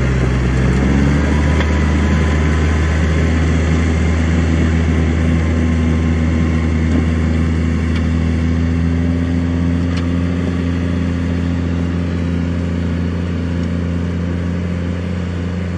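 Farm tractor's diesel engine running under load while pulling a mounted plough through the soil. Its pitch rises slightly about a second in, then holds steady, growing a little fainter as the tractor moves away.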